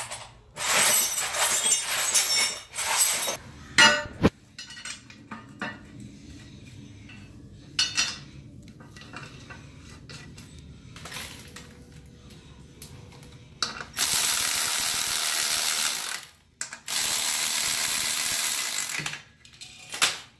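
Loose steel bolts and hand tools clinking and rattling as they are picked up, with a sharp metal knock about four seconds in, then scattered metal clicks as a steel bracket is fitted onto a rear differential. Near the end come two steady stretches of even mechanical rattle, about two seconds each.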